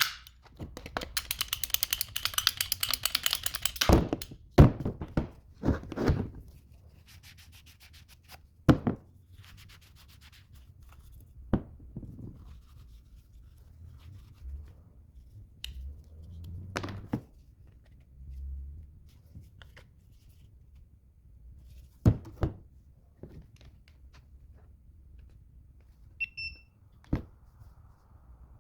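Handling and knocking noises: a fast rattling run of clicks for a few seconds, then scattered thunks and knocks, and a short electronic beep near the end.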